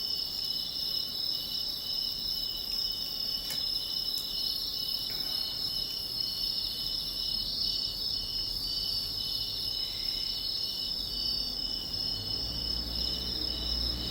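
A steady chorus of insects trilling, high-pitched and finely pulsing without pause, with a couple of faint clicks.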